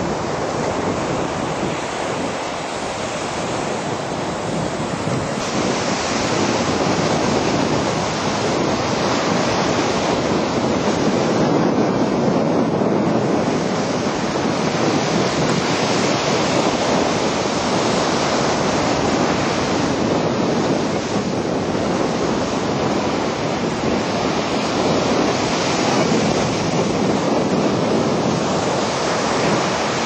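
Surf breaking on a sandy beach, a steady wash that swells and eases gently, with wind buffeting the microphone.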